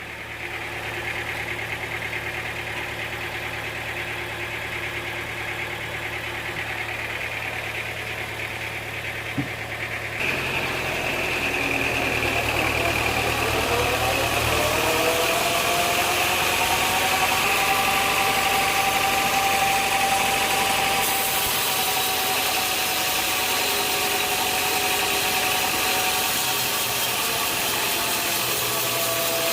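Sawmill machinery engine running steadily. About ten seconds in it gets louder, and a whine climbs in pitch, then levels off into a steady tone.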